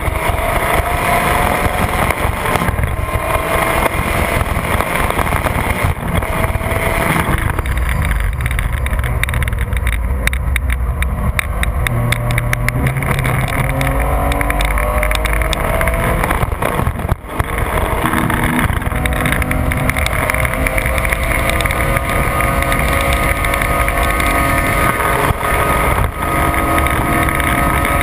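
A 2004 Porsche 911 GT3 (996)'s 3.6-litre flat-six heard from inside the cabin at track speed, with wind and road noise. The engine note climbs at first, settles lower through the middle, dips briefly about two-thirds of the way through, then climbs steadily again under acceleration near the end.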